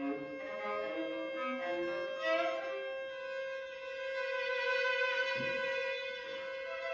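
Viola and cello improvising together. One long note is held steady throughout while shorter notes step about below it, with a quick rising run about two and a half seconds in.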